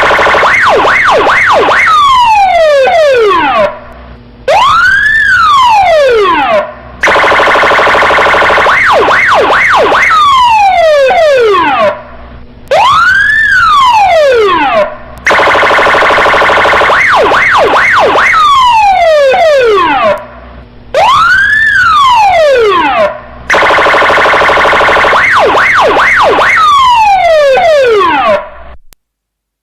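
Stationary police car siren cycling through its tones: a steady buzzing horn tone, a few quick yelps, falling sweeps, then a wail that rises and falls. The cycle repeats about every eight seconds, three to four times, and stops shortly before the end.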